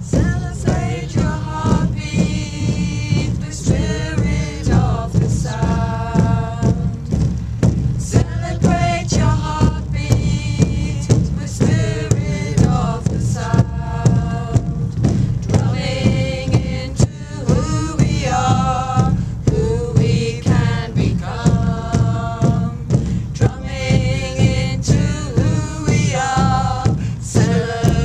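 Chanted singing over a steady, even drumbeat.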